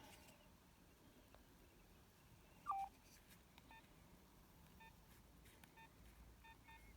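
Faint short electronic beeps from a Nokia 6230i mobile phone's keypad as its buttons are pressed: one clearer beep that drops in pitch and then holds, about three seconds in, followed by several fainter short beeps, some in quick pairs.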